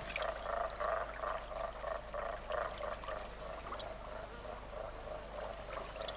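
Frogs croaking in a marsh chorus: a rapid run of short calls, about four a second, growing fainter about halfway through.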